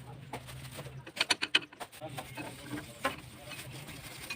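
Sharp metallic clinks and taps of hand tools and loose parts against an opened motorcycle engine casing, a quick rattle of several about a second in and a single one near three seconds.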